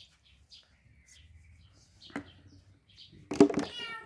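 A cat meowing once near the end, a loud call whose pitch falls away. Before it there is a quiet stretch with a short click about two seconds in.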